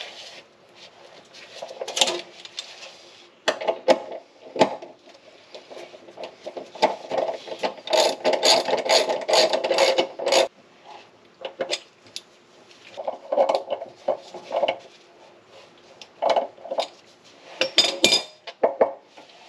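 Socket ratchet clicking as bolts on a car's transmission underside are turned, with a fast run of ratcheting about eight seconds in and scattered metal clinks of tools and parts being handled.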